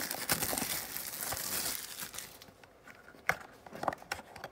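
Packaging crinkling and tearing as a 2020 Panini Prizm football blaster box is ripped open. The noise eases off about two seconds in, followed by a few sharp clicks.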